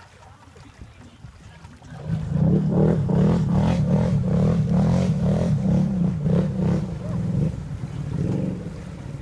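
Off-road vehicle engine running hard with a pulsing low rumble, starting loud about two seconds in and easing off near the end.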